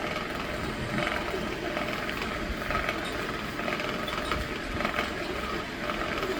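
Electric fan running steadily, with faint, uneven clicking or rattling over its hum.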